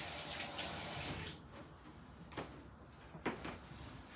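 Water running from a tap, shut off about a second in, followed by three or four light knocks and clicks.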